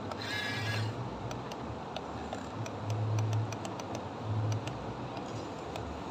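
Yigong remote-control toy excavator's electric motors running in short spells of low hum as the arm swings and digs sand, with scattered light clicks, over a steady rushing background. A brief high chirp sounds just after the start.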